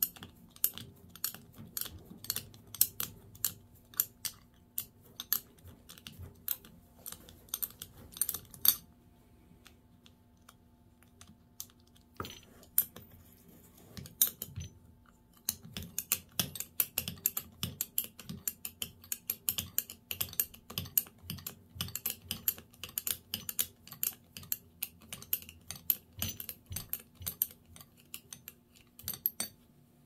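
Quick runs of small metallic clicks, several a second, from a hand tool and parts on a Garrett TE-62 turbocharger's bearing housing as it is taken apart, with a pause of several seconds in the middle.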